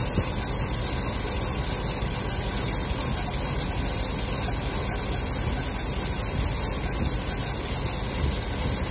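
Serpentine drive belt screeching steadily with a continuous high-pitched squeal over a running engine. The squeal is blamed on the belt's inner ribs and pulley groove.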